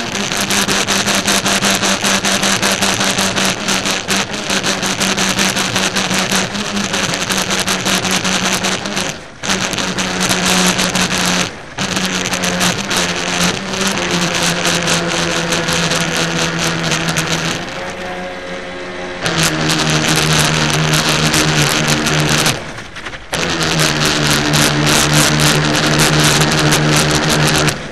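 Radio-controlled model speed boat's motor running at high revs with a steady buzzing pitch. It cuts out briefly twice, eases off to a lower pitch for a couple of seconds, then picks up again, with one more short cut near the end.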